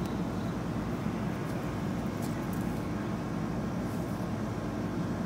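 Steady background hum and hiss, with a faint steady low tone underneath and a few faint clicks about two and four seconds in.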